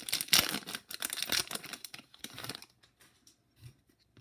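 Foil wrapper of an Upper Deck hockey card pack being torn open and crinkled. The crackling stops about two and a half seconds in, followed by a few faint soft taps as the stack of cards is handled.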